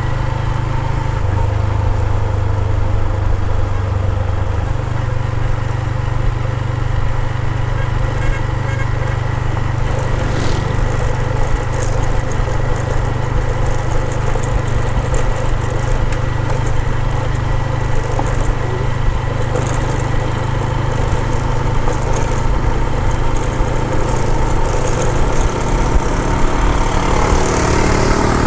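Small motorcycle engine running steadily while under way, its note shifting slightly about a second in and again about five seconds in.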